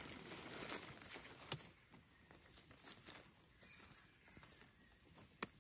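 Steady high-pitched insect chorus, with faint rustling and two sharp clicks, one about a second and a half in and one near the end.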